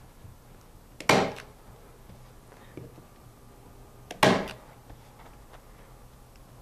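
Staple gun firing twice, about three seconds apart, driving staples through canvas into a wooden stretcher bar.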